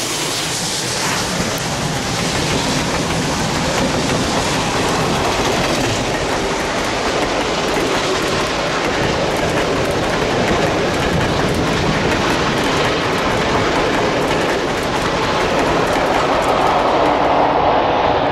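A passenger train rolling past close by: trailing diesel locomotives and then passenger coaches, a steady rail rumble with wheels clicking over rail joints. The sound changes just before the end.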